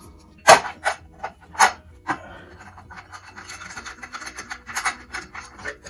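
Metal flywheel of a 1973 Mercury 40 hp outboard being fitted back onto the powerhead over the new stator. About four sharp metal clanks come in the first two seconds, then a run of quick scraping and rubbing strokes as it is turned and seated by hand.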